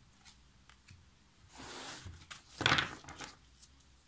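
Tarot card drawn from the deck and slid across the table: a soft swish about a second and a half in, then a louder slap as the card is laid down, with a few light clicks of card handling around it.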